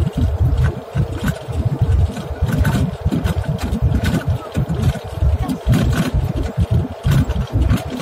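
Airliner cabin noise on the ground after landing: a steady engine hum under an uneven low rumble from the wheels rolling on the runway, with scattered light rattles.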